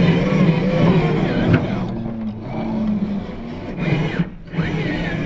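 RC scale crawler's motor and geared drivetrain whining as it drives over sand, the pitch rising and falling with the throttle, with a brief drop about four seconds in.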